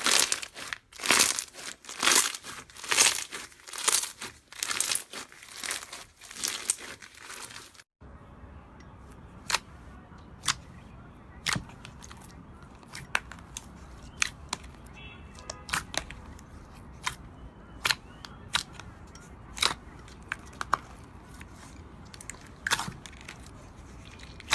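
Slime being worked by hand, crackling and crinkling in quick, dense bursts. After a sudden change about eight seconds in, it gives only occasional sharp pops or clicks, roughly one a second, over a faint low hum.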